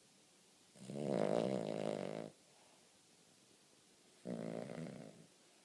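Cavalier King Charles spaniel snoring in its sleep: two snores, a longer, louder one about a second in and a shorter, quieter one near the end.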